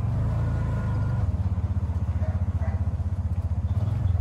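Bajaj RE three-wheeler's single-cylinder engine running while under way, a steady fast low putter heard from the driver's seat.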